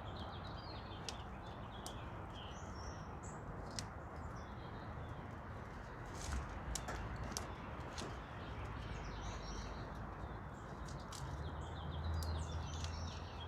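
Small birds chirping and twittering in the background over a steady outdoor hiss, with a low rumble swelling near the end.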